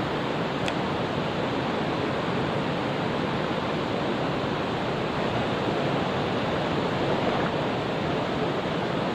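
Rushing water of a mountain stream, a steady even noise without breaks.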